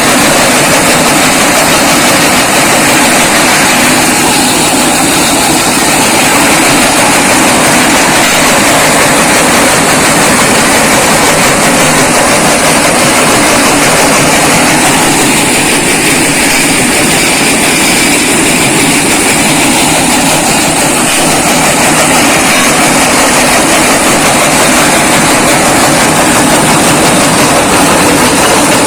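Brick-breaker machine (a small brick crusher) running, a loud, steady mechanical noise without breaks.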